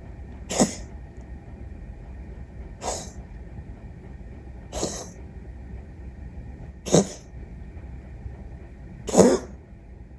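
A cat sneezing five times, one sharp sneeze about every two seconds.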